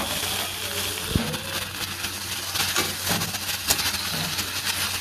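Onions and chopped tomatoes sizzling in a kadai over a steady low hum, with a metal spatula scraping and knocking against the pan several times as they are stirred, mostly in the second half.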